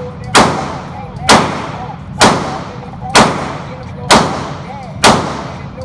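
Handgun being fired in slow aimed fire, six shots about one a second, each ringing out in the echo of an indoor range. The shots stop near the end.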